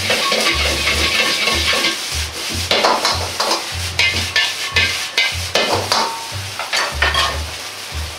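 Metal ladle scraping and clanking against a Chinese wok again and again as fried rice is stir-fried and tossed, over steady sizzling from the hot pan. The clatter dies down near the end.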